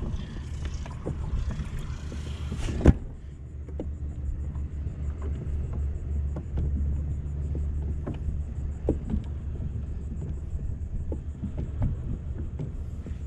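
Wind rumbling steadily on the camera microphone, with scattered small clicks and knocks and one sharp knock about three seconds in.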